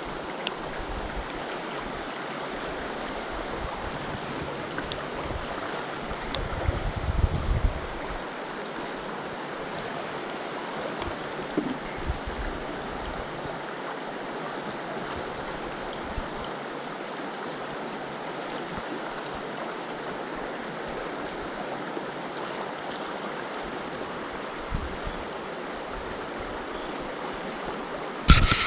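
Mountain stream water rushing steadily, with a low rumble about seven seconds in and a short, loud burst of noise near the end.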